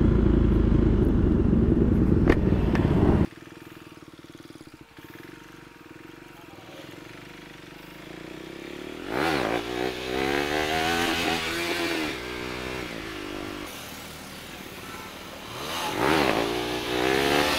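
Wind rush on a helmet-mounted camera while riding a motorcycle, cut off abruptly about three seconds in. Then a motorcycle engine revs up and down several times, about nine seconds in and again near the end.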